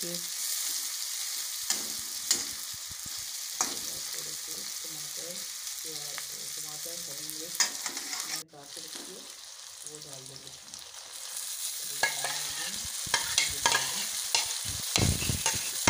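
Sliced onions sizzling in hot oil in a steel karahi, with a metal spatula scraping and clinking against the pan as they are stirred. The sizzle drops suddenly a little past halfway, and near the end the scraping and clatter come louder and more often.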